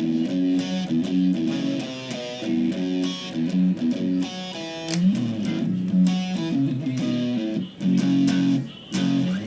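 Electric guitar played through a Boss SD-2 Dual Overdrive pedal: chords and single-note riffs, with a rising slide about halfway and short, choppy chord hits near the end.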